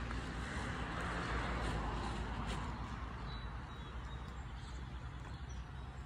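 A vehicle passing by, its tyre and engine noise swelling about a second in and then fading, over a steady low rumble of outdoor background noise.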